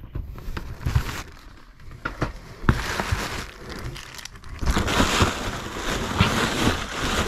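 Clear plastic packaging crinkling and rustling as it is handled in and pulled from a cardboard box, with scattered knocks and scrapes; the crinkling gets denser over the last few seconds.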